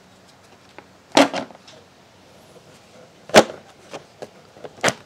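Plastic engine cover of a 2003 Toyota Camry being pulled upward off its hold-down clips: three sharp snaps as the clips jar loose, the loudest about three and a half seconds in, with a few lighter plastic clicks between.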